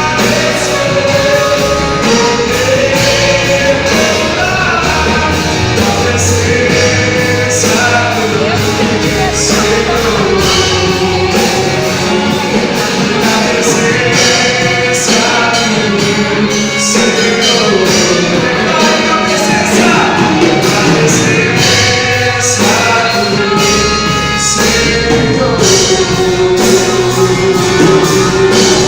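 Gospel band playing a song, with a sung melody over a steady drum beat.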